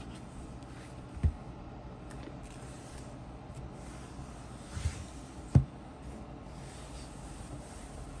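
A leather-bound Bible being handled and opened, its cover and thin pages rubbing and rustling, with three dull knocks as the book is moved about: one about a second in, and two close together past the middle, the second the loudest.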